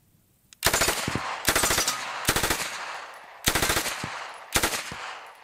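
MK760 9mm open-bolt submachine gun firing on full auto in five short bursts about a second apart, each a fast run of shots with a short echo after it.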